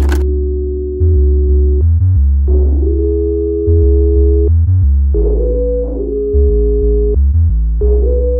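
Background electronic music: synthesizer chords over a heavy bass line that changes note about once a second, sounding muffled with the highs filtered away.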